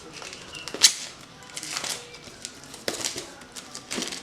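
Hands opening a phone's retail box: sharp snaps of the packaging with rustling and crinkling in between, the loudest snap about a second in and more near three and four seconds.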